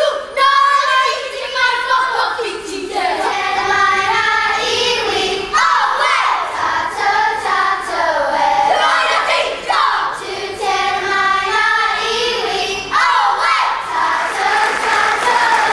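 Group of children singing a Māori song together in a kapa haka performance. Applause starts near the end.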